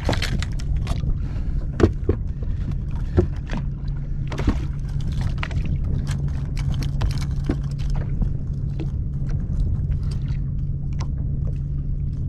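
Scattered clicks, knocks and rattles from a big freshwater drum being handled and unhooked in a landing net on a bass boat's deck, a few sharper knocks among them, over a steady low rumble.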